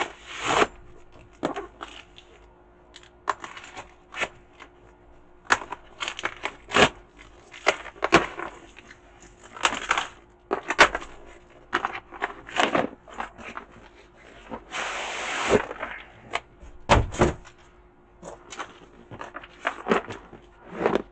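Cardboard shipping box being opened by hand: packing tape slit and pulled, cardboard flaps bent open, and the card crackling, knocking and scraping in many short sharp sounds. About fifteen seconds in there is one longer tearing sound.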